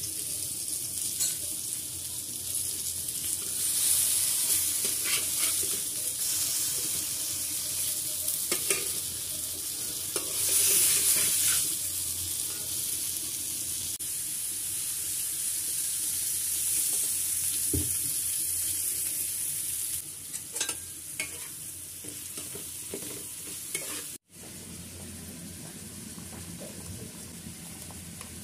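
Hot oil sizzling in a frying pan as eggplant slices and then sliced onions fry, with a cooking utensil stirring and scraping now and then. The sizzle swells louder a few times, and after an abrupt cut near the end it carries on more quietly.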